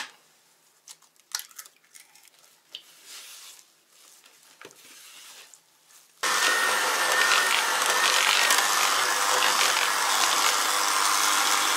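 Faint scraping of a spatula stirring thick dough in a plastic bowl. About six seconds in, an electric hand mixer switches on suddenly and runs steadily, its beaters working the stiff doughnut dough.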